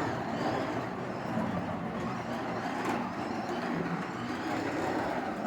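Carrera D124 BMW M4 slot car running laps on its hard stock rubber tyres: the electric motor whines, rising and falling with the throttle, over a steady rush of gear and tyre noise from the track.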